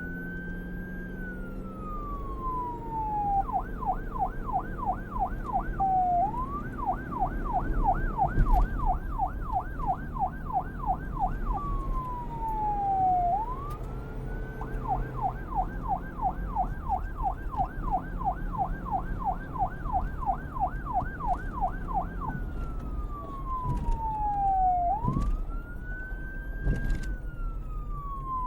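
Police car siren alternating between a slow wail that slides down and back up over a few seconds and a fast yelp of about three sweeps a second, over a low rumble.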